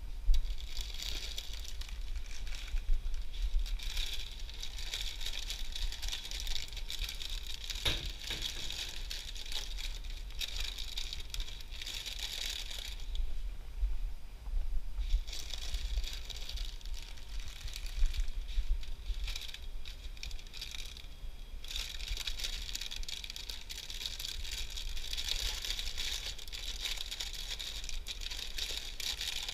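Plastic snack bags crinkling and rustling in spells as they are handled while a snack vending machine is being stocked, with a sharp knock about eight seconds in, over a steady low hum.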